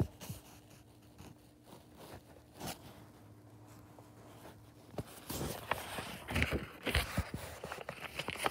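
Faint room hum, then from about five seconds in a run of rustling, scraping and sharp knocks: a phone being handled and shifted against the book and fabric.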